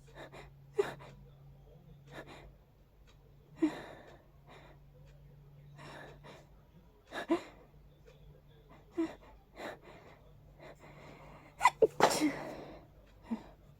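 A person sneezing repeatedly in a hayfever sneezing fit: a string of short, sharp sneezes with breaths drawn in between, the loudest cluster coming close together near the end.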